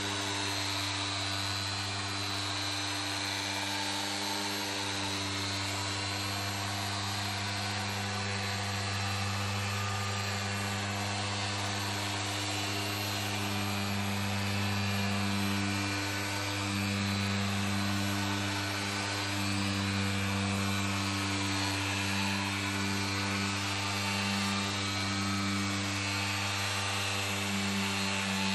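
Electric orbital polisher with a foam pad running steadily against a car's painted wing, a continuous motor hum that grows a little louder in the second half.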